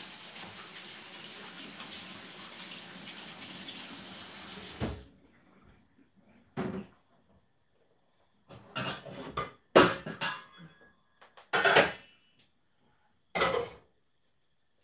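A faucet runs steadily and is shut off about five seconds in. Then comes a series of separate clanks and knocks as a pan is got out and handled, the loudest a sharp knock about ten seconds in.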